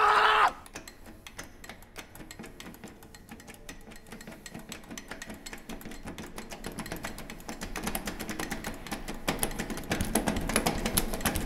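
A man's short yell at the start, then a rapid, irregular clicking that builds louder over several seconds and cuts off suddenly.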